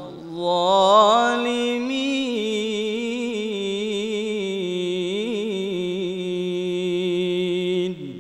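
A man's voice reciting the Quran in the melodic tilawah style. He draws out the closing word of the verse, "az-zalimin", on one long, slightly wavering held note that stops shortly before the end.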